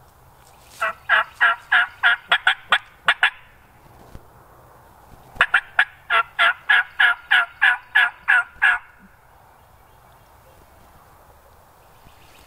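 Two runs of turkey yelps, each of about ten to twelve evenly spaced notes at roughly four a second, the second run starting about two seconds after the first ends.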